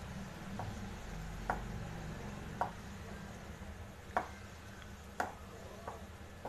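Wooden spatula stirring whole apricots in syrup in a non-stick pan, knocking against the pan about six times at uneven intervals over a low steady hum.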